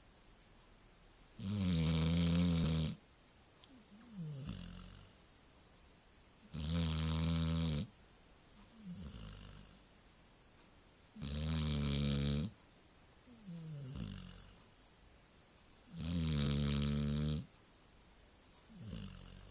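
Labrador retriever snoring in its sleep: four loud snores about every five seconds, each followed by a quieter breath that falls in pitch.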